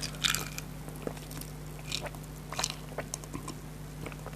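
Close-miked eating sounds: chewing with a scatter of short, sharp mouth clicks and crunches, the strongest right at the start.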